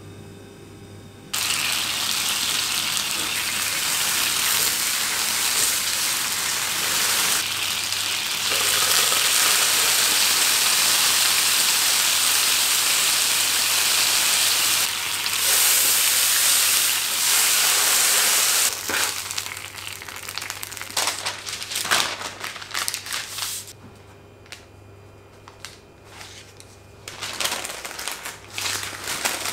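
Red sauce of olive oil and tomato paste ladled into a hot pan, sizzling loudly from about a second in while a rolled shawarma wrap fries in it. The sizzle stops about two-thirds of the way through, leaving scattered clicks and knocks, and near the end parchment paper crinkles as the wrap is rolled in it.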